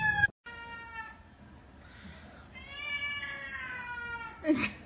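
Domestic cat meowing: a short meow, then a long drawn-out meow that slides slowly down in pitch, with a brief sharp cry near the end.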